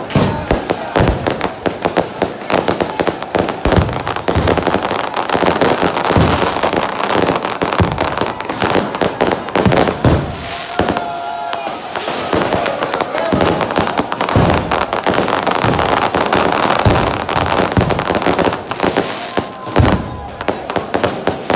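Fireworks and firecrackers going off in a dense, unbroken string of bangs and crackles, with a few short whistling tones about halfway through and near the end.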